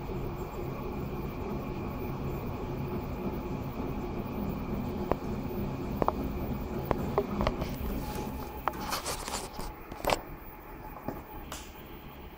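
Homemade large-format 3D printer running a print: its stepper motors and print-head fan give a steady mechanical hum. A run of sharp clicks comes from about five to ten seconds in, and the sound gets quieter after that.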